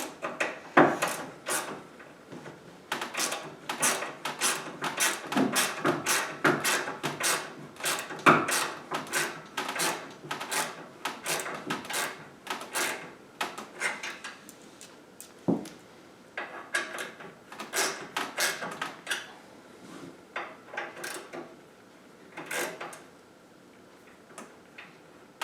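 Fine-tooth Wera ratchet clicking in runs of quick strokes as it tightens a treadmill's belt-tension bolts, with short pauses between runs. The clicking thins out over the last few seconds.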